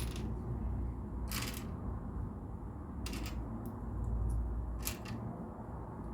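LEGO plastic pieces being handled: a few sharp clicks and, about a second and a half in, a short rattle, over a low rumble of handling noise.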